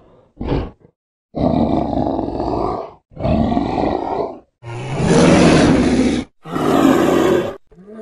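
Creature sound effects made from animal roars: a short grunt, then four long growling roars of about a second and a half each, with brief gaps between them, the third the loudest.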